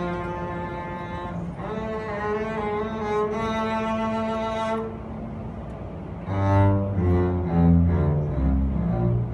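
Double bass and small string orchestra playing classical music. Bowed strings hold notes and carry a melody at first. About six seconds in, a louder run of separate low bowed notes starts, typical of the double bass solo line.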